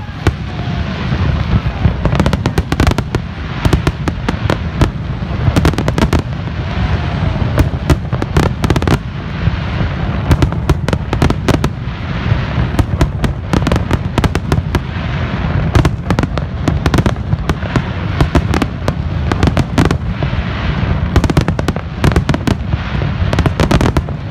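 Aerial fireworks display: a dense, continuous barrage of shell bursts, many bangs a second without a break, over a steady deep rumble.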